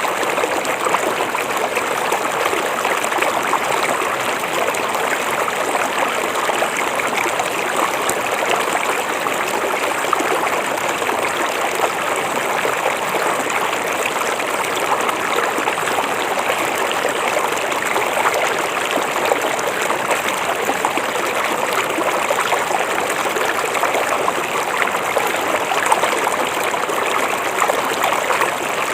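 A river flowing: steady rushing and trickling water with a fine, even babble throughout.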